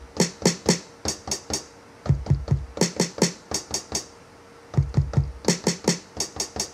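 Drum-machine samples (a kick drum, a snare and a closed hi-hat) triggered from Maschine's pads in quick runs. There are two clusters of about four deep kick thumps, alternating with three faster runs of sharp, bright snare and hi-hat hits.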